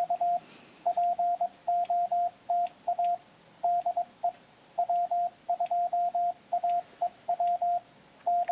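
Penntek TR-45L CW transceiver sounding Morse code in a single steady tone, keyed in short dits and longer dahs. It is the radio's playback of a stored CW message memory: the operator's POTA call.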